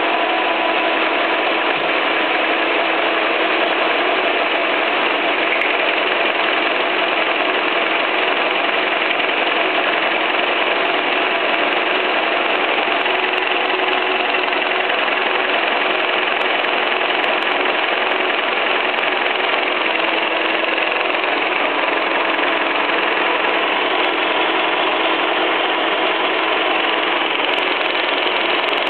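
Metal milling machine running, a steady mechanical drone with several constant whining tones that holds unchanged throughout.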